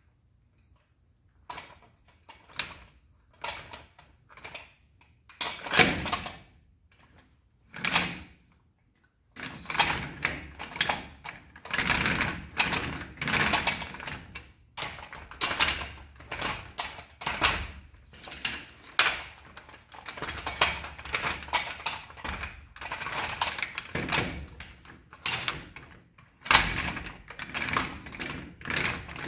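Irregular clicking and clacking of small hard parts, a few separate clacks at first, then busy clatter from about nine seconds in.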